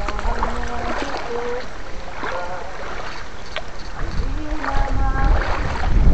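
Stream water sloshing and splashing around a person's legs as he wades through a shallow, rocky stream, with a low rumble that gets louder near the end. A few short, high pitched calls come through now and then.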